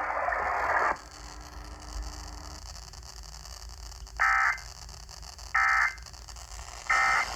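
Three short bursts of SAME digital data tones from a NOAA weather radio's speaker, evenly spaced, over steady radio hiss: the end-of-message codes that close the National Weather Service weekly test. A second of noisy broadcast sound ends just before them.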